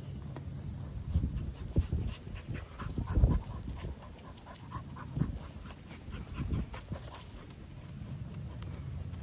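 An animal breathing close by, with irregular knocks and rustles, the loudest about three seconds in.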